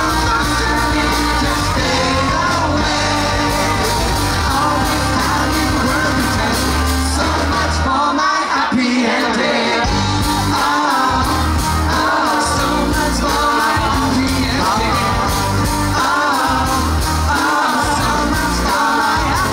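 Live band playing a song, with a singer over guitar, keyboard, bass and drums. The bass drops out for about two seconds near the middle, then comes back in.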